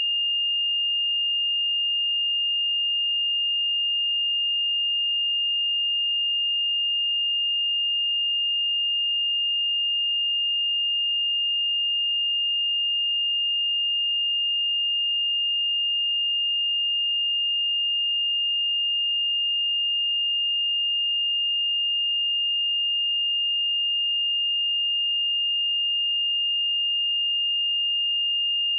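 A pure 2821 Hz sine-wave test tone, one steady high-pitched note held unchanged at a constant level.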